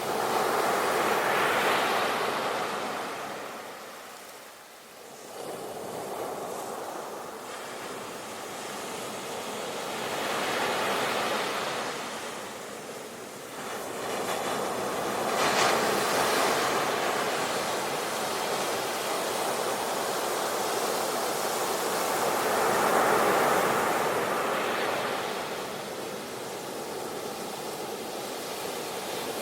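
Ocean surf: waves breaking and washing in, the noise swelling and ebbing in slow surges, with one sharper crash about halfway through.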